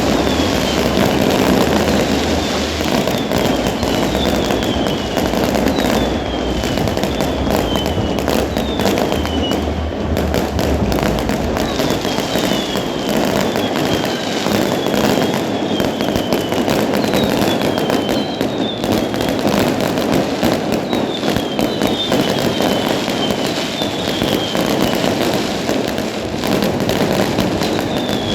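Fireworks display going off continuously, a dense run of bangs and crackling, with short high whistles falling in pitch recurring throughout.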